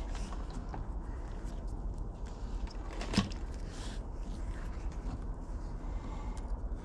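Hands handling a bundle of loose wiring-harness wires: faint rustling and light clicks, with one sharp knock about three seconds in, over a steady low hum.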